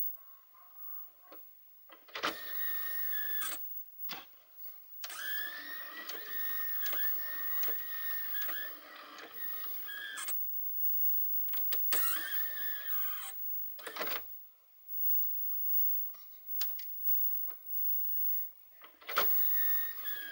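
Optical disc drive's tray motor driving the tray out and in several times, with a wavering squeak as the tray slides. The longest run is about five seconds, mid-way. The squeak comes from too little grease on the tray mechanism, which the owner says a fresh greasing will cure.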